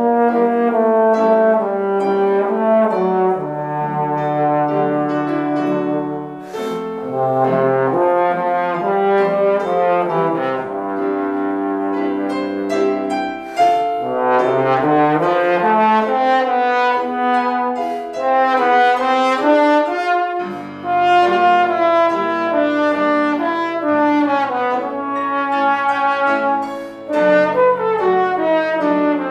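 Trombone playing a legato melody with upright piano accompaniment, the trombone's held notes moving from one to the next over the piano's chords.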